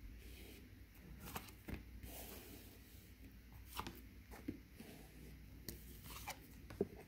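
Tarot cards being handled: quiet, irregular taps and rustles of the cards.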